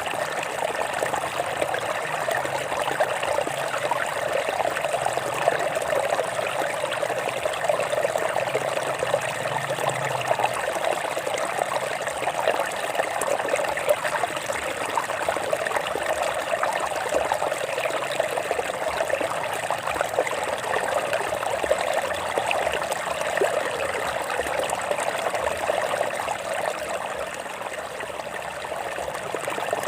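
Water running over rocks in a stream: a steady splashing and gurgling flow.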